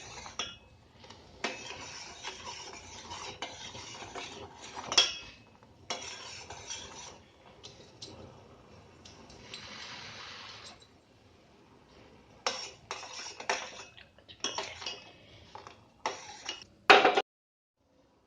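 Metal spoon stirring and scraping in a pan of boiling milk kadha, with scattered clinks against the pan and a sharp, loud clink near the end.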